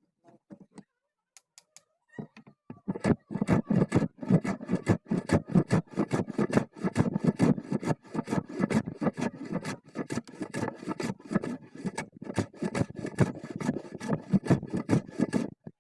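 Wooden hand plane cutting wood in a rapid series of short scraping strokes, about five or six a second, starting about two seconds in.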